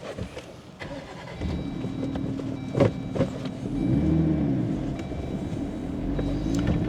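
Off-road vehicle's engine running at low speed, picking up about a second and a half in and revving up and easing off a couple of times, with a few sharp knocks about three seconds in.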